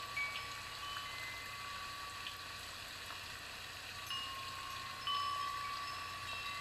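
Soft, high chime tones at several pitches, held and overlapping, with new notes coming in near the start, about four seconds in and about five seconds in.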